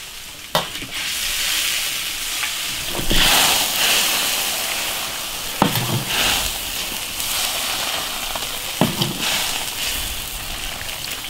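Spicy beef tripe stew sizzling steadily in a hot pot. A few sharp knocks are heard, the first as a metal ladle meets the pot.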